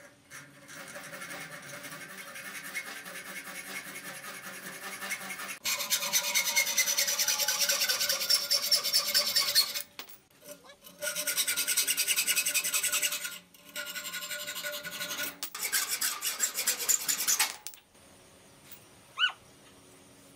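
A restored hand hacksaw cuts through a square metal tube clamped in a vise, with rapid rasping strokes of the blade on the metal. The sawing comes in several bouts with brief breaks near 10 and 13 seconds and stops a couple of seconds before the end.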